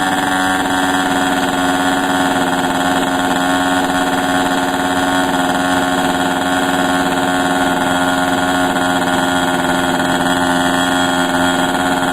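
Model airplane engine running steadily at a constant speed, holding one even pitch.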